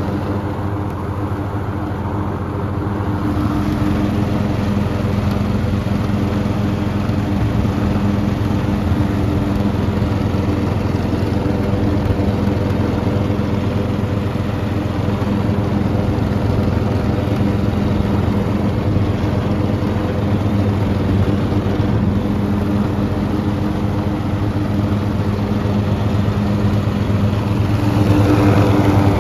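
Oleo-Mac ride-on lawn tractor's engine running steadily as the tractor drives. It gets a little louder about four seconds in and again near the end.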